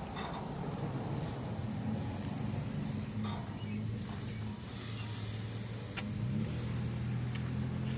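An engine idling with a steady low hum, with a sharp click about six seconds in.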